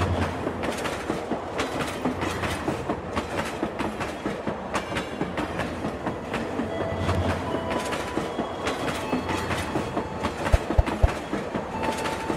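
Motorised toy steam locomotive pulling its wagons around a plastic track, with a steady rhythmic clicking clatter. A couple of sharp low thumps come about ten seconds in.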